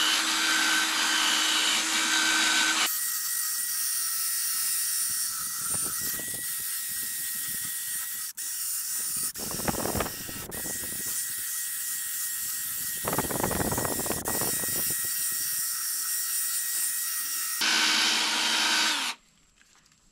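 Cordless drill spinning a wet 800-grit sanding disc against a plastic headlight lens, sanding off yellowed haze. The motor's whine shifts in pitch about three seconds in, shifts back near the end, and stops about a second before the end.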